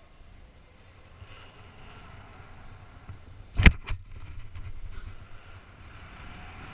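Wind rumbling and buffeting on the action camera's microphone as the jumper hangs and swings on the bungee cord, with a sharp knock a little over halfway through and a smaller one just after.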